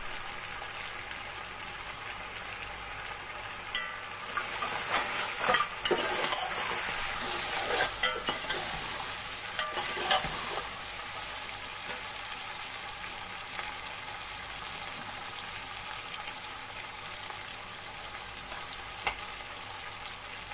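Vegetables frying in hot oil in a metal pot over high heat, with a steady sizzle. A metal spatula scrapes and knocks against the pot as the food is stirred, mostly between about four and eleven seconds in.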